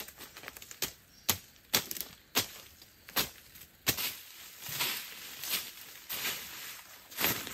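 A digging tool striking into dry, leafy forest soil in a series of sharp chops, about one every half second to second. Then the blows give way to scraping as soil and dry leaves are dragged aside.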